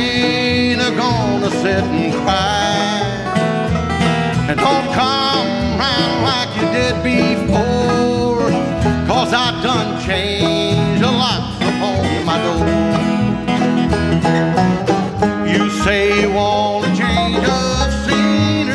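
Bluegrass band playing an instrumental break on banjo, two acoustic guitars, mandolin and upright bass, without singing.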